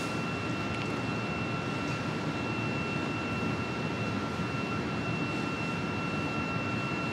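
A steady machine roar with a constant high whine over it, unchanging in level.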